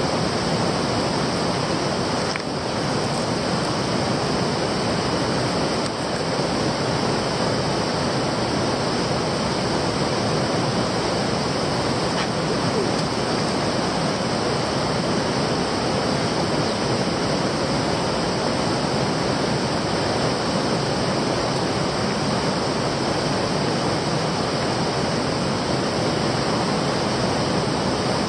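Fast-flowing stream water rushing steadily.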